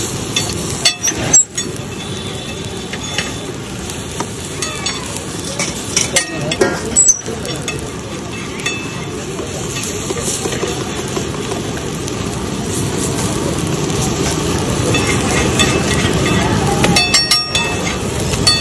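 Uttapams frying on a large flat griddle with a steady sizzle, while a metal spatula scrapes and clinks against the griddle a few times, about a second in, around six to seven seconds in, and near the end.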